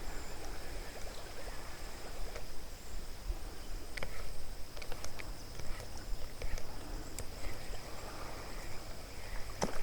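Quiet pondside ambience: a steady high-pitched insect drone with a few faint ticks scattered through, and a sharper click near the end.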